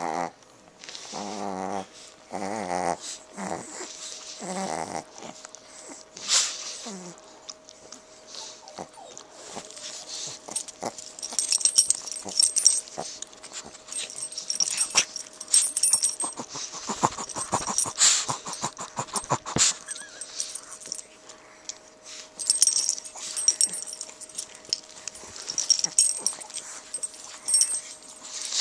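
Two Chihuahuas and a pug play-fighting: a few short growls in the first seconds, then snuffling, wheezy breathing and scuffling in the bedding.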